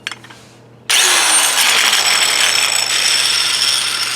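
Angle grinder switched on about a second in and running loud and steady, its blade grinding into a wet concrete paver edge.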